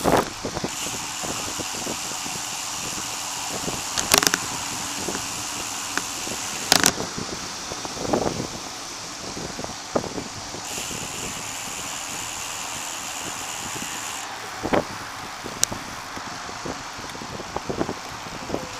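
Steady rush of wind and tyre noise picked up by a camera mounted on a moving bicycle, with a few sharp knocks and rattles from the bike and mount, the loudest about four and seven seconds in.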